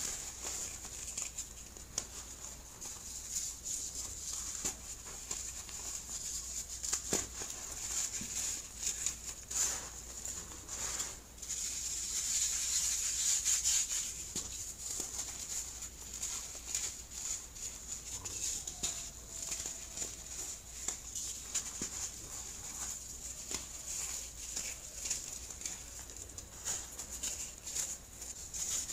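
Hands crushing and crumbling chunks of clumped baking soda: a continuous run of soft, dry, crisp crunches and crackles, with a denser, louder stretch of crumbling about halfway through.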